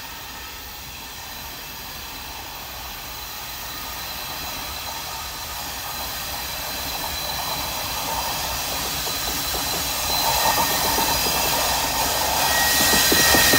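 Slow freight train led by Norfolk Southern GE diesel locomotives approaching, its engines and wheels growing steadily louder as it nears. A high, thin steady whine comes in over the last few seconds.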